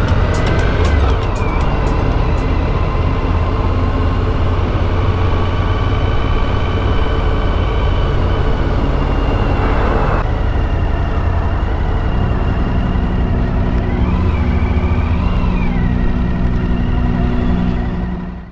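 Motorcycle engine running at steady cruising speed on the open road, with a loud low rumble and wind noise. Steady higher tones sit over it, wavering in pitch now and then. The whole sound fades and cuts off at the very end.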